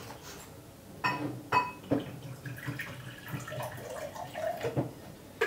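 A few sharp clicks as the plastic water bottle's cap is opened, then water poured from the bottle into a glass tumbler.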